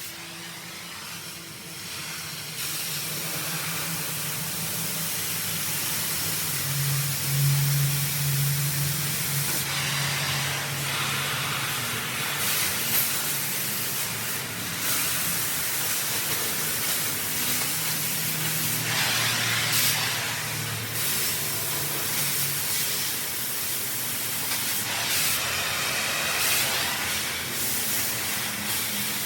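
Oxy-acetylene torch flame hissing steadily, with louder rushes of hiss several times, over a low hum that fades out near the end.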